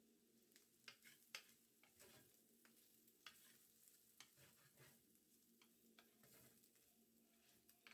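Faint irregular scrapes and clicks of a spatula stirring food in a frying pan, with a light sizzle beneath.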